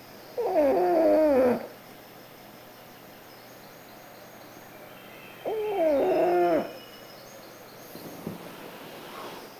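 Dog snoring heavily in its sleep: two loud snores about five seconds apart, each about a second long with a hooting, whistle-like tone that falls in pitch, and a faint breath near the end.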